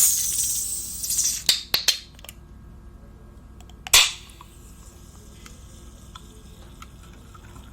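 Close-miked crunching of crispy fried chicken: a loud crackling bite at the start that dies away over about a second, three quick sharp crunches soon after, and another loud crunch about four seconds in, with faint small clicks of chewing between.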